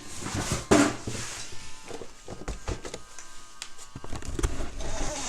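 Handling noise on a workbench: a loud knock about a second in, then a run of small clicks and taps, with rustling near the end, as objects are picked up and set down.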